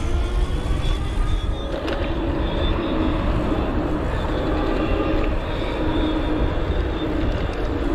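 Ebike riding at speed: wind rushing over the microphone with tyre noise, and a steady whine from its 48 V 750 W geared hub motor.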